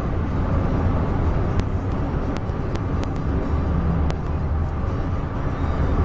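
Steady road noise inside the cab of a Toyota Tacoma pickup driving on a highway: a low, even rumble.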